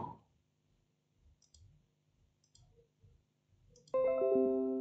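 A few faint computer mouse clicks, then about four seconds in a short Windows notification chime of ringing notes that fades out. The chime is the sign of Windows detecting the repaired USB flash drive.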